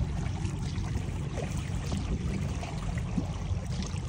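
Water splashing and trickling along the hull of a small paddled boat under way.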